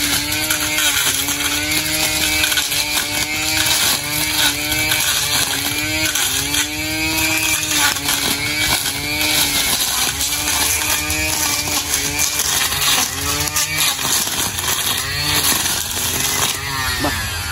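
String trimmer cutting grass, its motor whine rising and falling in pitch about once a second as the spinning line sweeps into the grass and back out. Near the end the pitch starts to slide down as it winds down.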